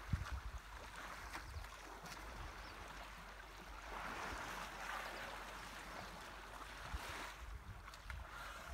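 Faint sloshing and splashing of river water around a group of bathing elephants, with low wind rumble on the microphone near the start.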